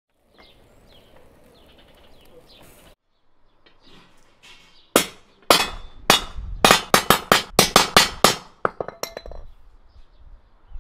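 A hammer striking a rusty steel rod laid across a concrete block: about fourteen sharp, ringing metallic blows, the first two spaced apart, then quick ones about three or four a second, stopping about a second before the end. Faint bird chirps come before the blows.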